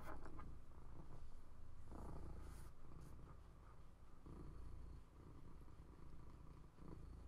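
Domestic cat purring, a faint low rumble that swells and fades in slow waves with its breaths.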